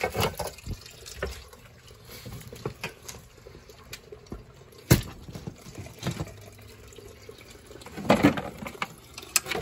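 Water pouring into a basement, with scattered knocks and clunks of things being moved; a sharp knock about halfway through and a burst of clattering near the end.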